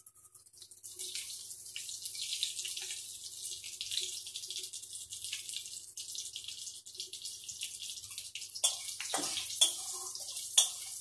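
Nigella seeds (kalonji) sizzling and crackling in hot oil in a metal kadhai. From about three-quarters of the way in, a spatula stirring them knocks and scrapes against the wok several times.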